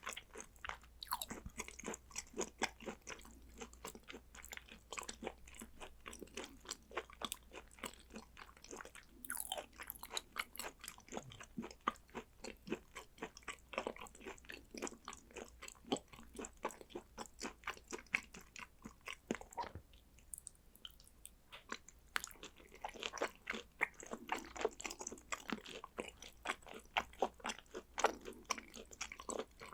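Close-miked chewing of raw beef and sea urchin roe: a steady run of wet mouth clicks and smacks, with a short lull about two-thirds of the way through.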